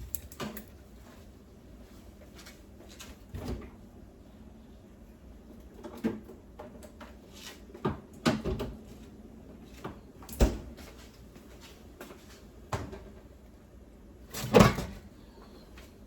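Kitchen handling noises: scattered knocks and clunks of jars, utensils and cupboard or pot, one every second or two, the loudest near the end.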